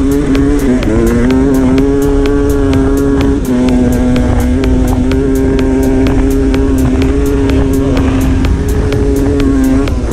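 Sherco two-stroke dirt bike engine running hard at high revs under fairly steady throttle, its note wavering a little, dipping about a third of the way in and easing off near the end.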